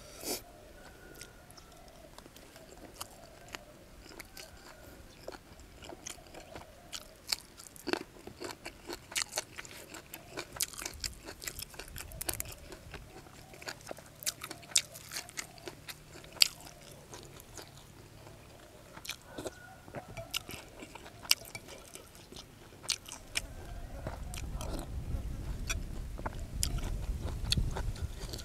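A person eating up close, biting and chewing with many crisp crunches and wet mouth clicks. A low rumble comes in for the last few seconds.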